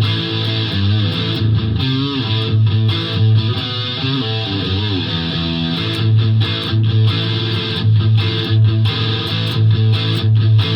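2006 Gibson Les Paul Classic with a Seymour Duncan SH-1 humbucker, played through a Fender Mustang LT50 modelling amp on a lead tone: sustained single-note lines with string bends and vibrato. A low note pulses at an even pace underneath.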